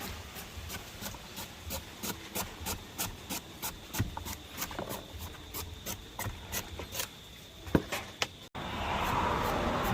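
Knife strokes on a wooden cutting board, a steady series of about three cuts a second. After a sudden cut near the end, a steady hiss takes over.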